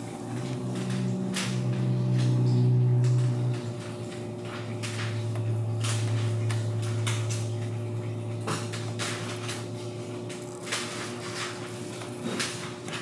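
Thick 20 mil protective film being peeled by hand off a car's lower door panel, giving short crackles and pops at irregular intervals as it lets go. A steady low hum runs underneath, loudest in the first few seconds and fading after about ten seconds.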